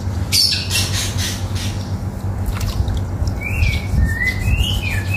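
A bird calling with several short rising and falling chirps in the last second and a half, over a steady low background rumble. A brief rustling scrape comes about half a second in.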